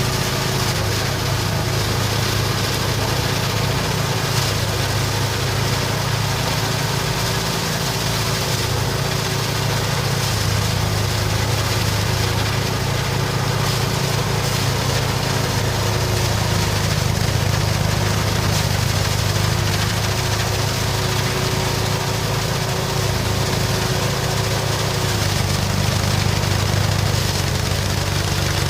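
Mini rice threshing machine's small engine running steadily, a constant drone with an unchanging hum.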